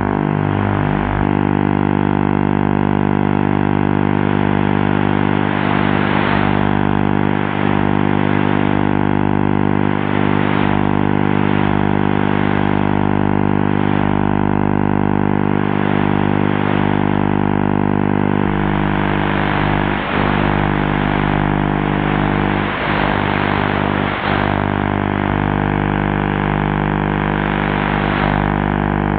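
Distant analogue TV vision carrier on channel E4 heard through the receiver's audio: a steady, loud buzzing drone made of the picture signal's field-rate hum and its many even overtones, under a hiss that swells and fades as the weak signal comes and goes. The buzz shifts slightly in tone about two-thirds of the way through as the picture changes.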